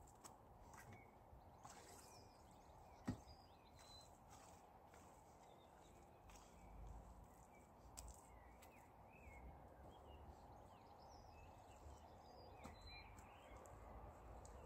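Near silence: faint outdoor ambience with scattered distant bird chirps and one sharp click about three seconds in.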